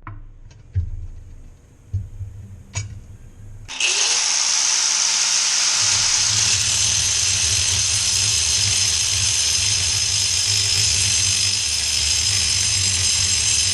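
A few knocks, then a power tool spins up about four seconds in and runs steadily at full speed for about ten seconds before cutting off.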